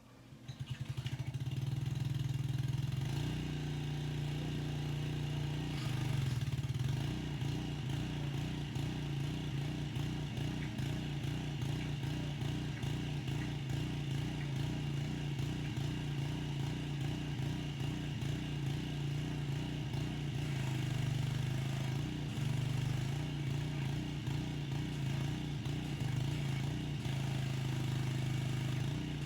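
Gasoline pressure washer engine starting up and then running at a steady speed, with a fast rhythmic pulsing through the middle stretch.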